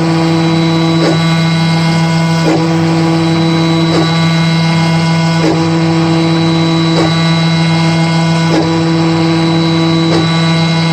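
Home-built CNC router running its rough-cut pass in wood: a steady motor hum with a whine above it, broken by a short pitch sweep that repeats about every second and a half.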